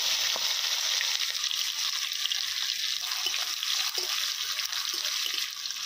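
Panch phoron, the Bengali five-spice seed mix, sizzling in hot oil: a steady hiss with a few faint pops of the seeds.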